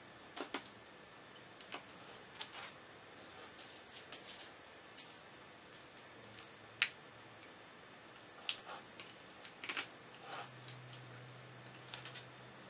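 Small plastic Lego bricks being handled and pressed together by hand: scattered light clicks and clacks at irregular intervals, with a few sharper snaps.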